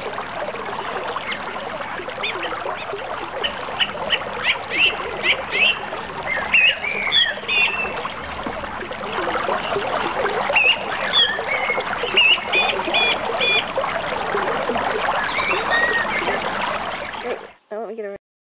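Creek water running steadily, with birds calling over it: a quick run of short repeated notes, then several gliding and repeated chirps. The sound cuts off abruptly near the end.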